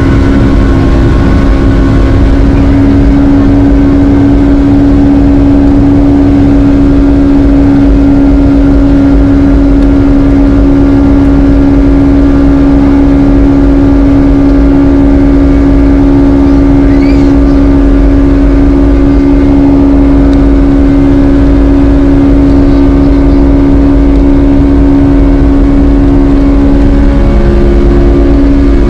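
Boeing 757-200's jet engines running, heard from inside the cabin: a loud, steady drone with a strong low hum and a rumble beneath.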